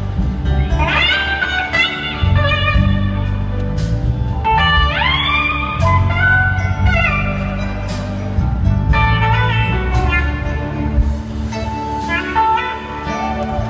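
Live blues-rock band with an electric slide guitar solo: notes slide up into long, sustained tones over bass and drums.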